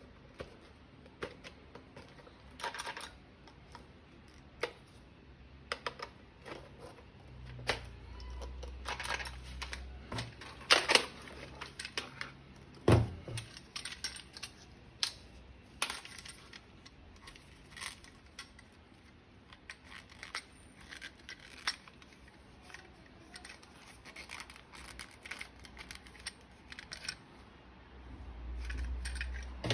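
Irregular clicks, taps and rattles of hard plastic toy-gun parts being handled and fitted together, with a sharper knock near the middle and a low rumble twice.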